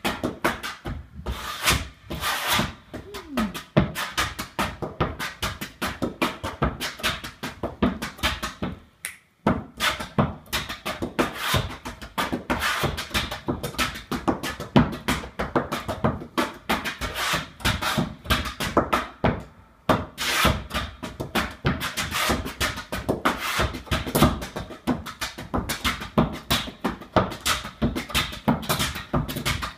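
Flat-footing: a dancer's hard-soled shoes striking the stage floor in rapid, shifting rhythms of taps and stamps. The steps stop briefly about nine seconds in and again just before twenty seconds.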